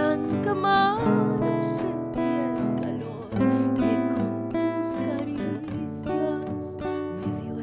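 A woman singing a slow guarania, her voice wavering, over an acoustic guitar played with plucked and strummed chords.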